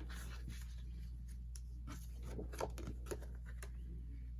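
Paper and cardboard album inserts being handled and fitted back into their package: light rustling with scattered soft taps, the two loudest a little past halfway. A steady low hum runs underneath.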